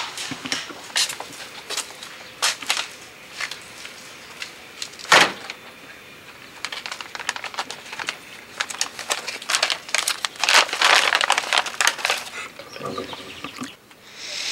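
Crinkly packaging being handled: irregular crinkling and rustling with scattered sharp clicks, busiest in the second half, and one sharper click about five seconds in.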